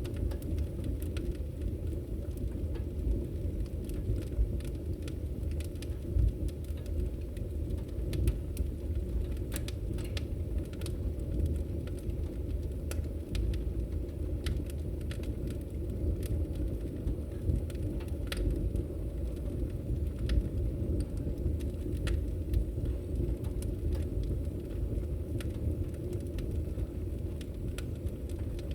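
Logs burning in a fireplace: a steady low rumble of the fire with scattered sharp crackles and pops from the wood.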